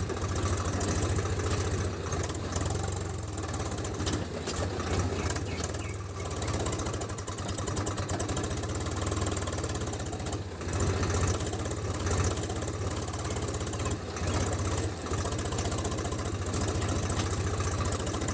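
A small engine running steadily at idle, with a fast, even pulsing and no change in speed.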